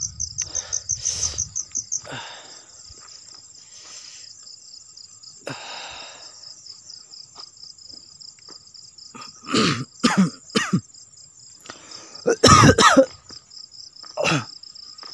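Crickets chirring in a high, pulsing trill, with fast pulses for the first couple of seconds and then a steady drone. From about nine seconds in, a person close to the microphone makes a handful of short, loud, breathy vocal sounds, the loudest a little before the end.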